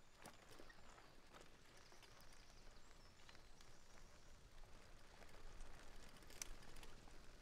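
Near silence: faint outdoor ambience with a few scattered light clicks.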